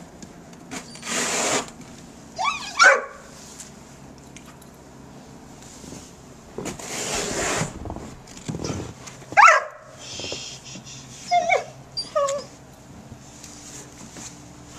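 Yellow Labrador whining and yipping in a few short rising cries. Two longer scrapes of a snow shovel through snow come about a second in and again around six to eight seconds in.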